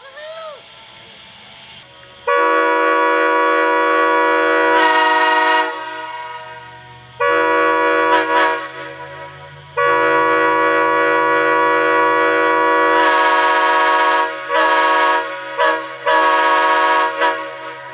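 Locomotive air horn sounding a chord of several notes in blasts: a long blast of about three seconds, a shorter one, a longer blast of about four seconds, then a quick run of short toots near the end.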